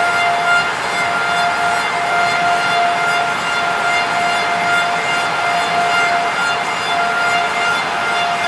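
Bacci T4MO CNC lathe finish-cutting several wooden parts at once with a very fine step: a steady high-pitched whine over a continuous hiss of cutting.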